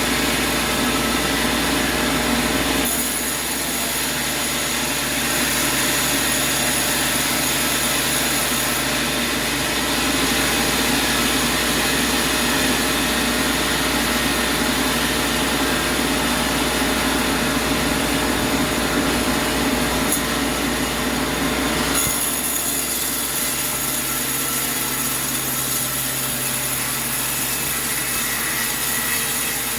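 Sawmill machinery running as a saw cuts through a log: a loud, steady mechanical din with a constant whine over it. The sound shifts abruptly about three seconds in and again about twenty-two seconds in.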